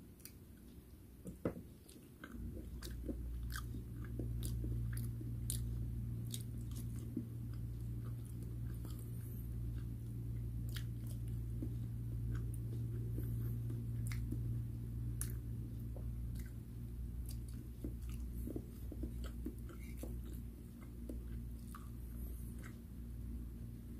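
Close-up chewing and biting of fried food, with small wet mouth clicks scattered throughout. A single knock comes about a second and a half in, as a ceramic bowl is set down on the plate. A steady low hum starts about two seconds in and carries on under the chewing.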